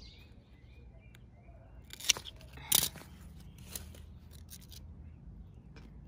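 Red-handled pruning shears snipping through plant stems: two sharp snips about two seconds in, then a few lighter clicks of the blades.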